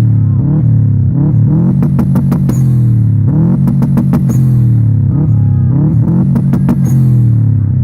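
Loud music with a heavy, sliding bass line and clusters of sharp percussion hits.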